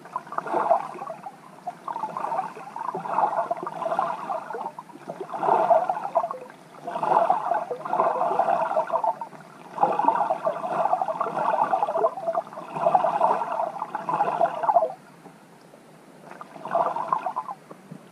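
Muffled water sloshing and gurgling, picked up by an underwater camera resting on a lake bed. It comes in irregular surges one to three seconds long, with quieter gaps.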